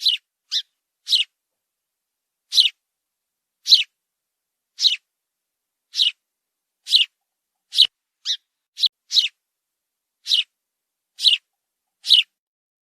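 Sparrow chirping: about fifteen short single chirps, each dropping in pitch, spaced roughly a second apart with silence between, a few coming quicker together around the middle.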